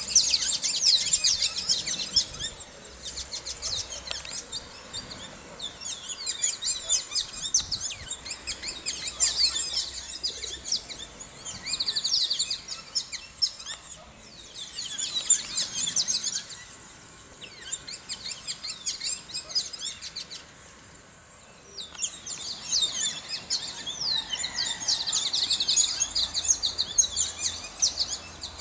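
Many birds chirping together: dense, rapid, high-pitched chirps in spells of a few seconds, broken by short lulls.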